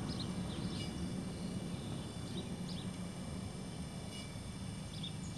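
Outdoor ambience: small birds chirping in short, scattered calls over a steady low hum.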